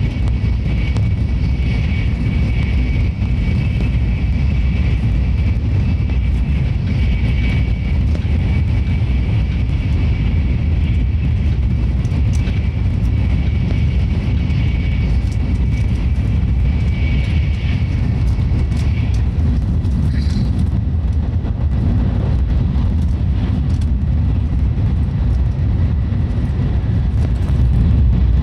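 Cabin noise of a Tokaido Shinkansen running at speed: a steady low rumble with a thin high whine that stops about two-thirds of the way through. It grows a little louder near the end as the train runs through a station.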